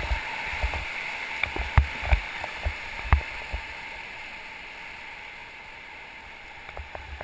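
Whitewater rushing and gurgling around a river raft, a steady hiss that eases off slowly. Several short knocks and low thumps come in the first few seconds.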